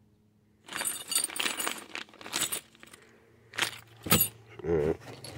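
Small plastic zip bags of bolts and screws being handled, the plastic crinkling and the metal hardware clinking inside, in two bouts.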